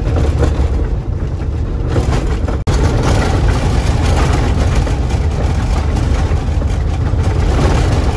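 Loud cabin noise of a 1982 VW T3 van driving on a corrugated dirt road: a steady, rough rumble of engine and road with dense rattling. The sound briefly cuts out about two and a half seconds in.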